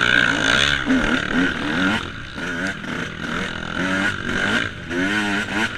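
Yamaha YZ125 125cc single-cylinder two-stroke motocross engine racing on dirt, revving up and down, its pitch rising and falling in quick succession as the throttle is worked.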